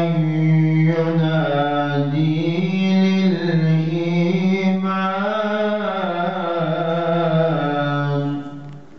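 A man reciting the Quran in the melodic tilawah style, drawing out a long melismatic phrase whose pitch winds up and down. The voice fades out about eight seconds in.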